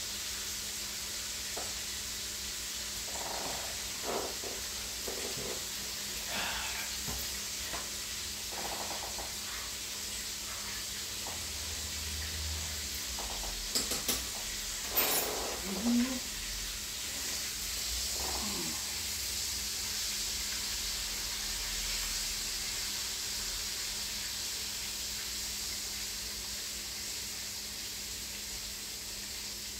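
Chicken frying in oil in a skillet, a steady sizzle, with a few knocks and clinks about halfway through.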